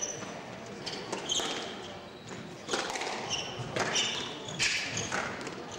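Squash rally: the ball smacking off racquets and the walls several times, with players' shoes squeaking on the wooden court floor.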